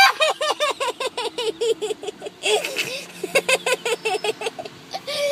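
A boy laughing hard: quick high-pitched 'ha' pulses, about six a second, opening with a squeal, broken by a breath about halfway, then another run.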